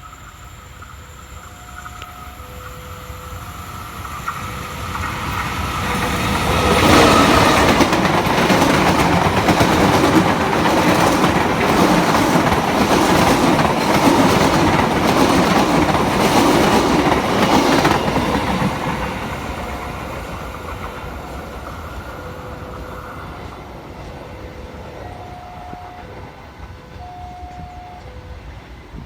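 A train passing by: its noise builds up over several seconds, stays loud with a steady clatter of wheels over the rail joints for about eleven seconds, then fades away. Short, faint steady tones sound now and then before and after the train.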